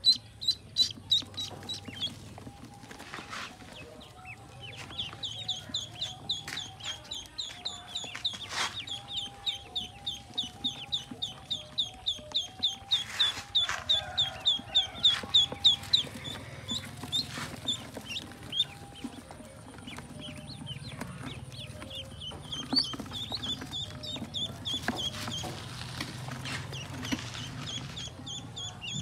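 A brood of ducklings peeping continuously: a stream of short, high, falling cheeps, several a second, busiest in the middle and again near the end.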